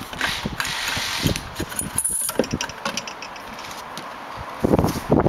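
Metal leeboard mount bar and leeboard being handled: irregular knocks, clicks and scrapes, with a cluster of louder knocks near the end.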